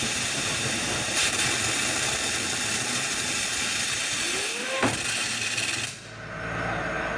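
High-pressure waterjet cutter's jet hissing steadily as it cuts into a spinning solid-rubber skateboard wheel. Just before five seconds in, a short rising tone ends in a sharp crack as the wheel breaks apart. The hiss dips about six seconds in, then builds again.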